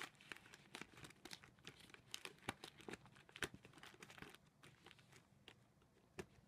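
Crinkling and rustling of a tissue box's plastic opening film and the tissues as hands push something down inside: dense, faint crackles for about four seconds, then only a few scattered ones.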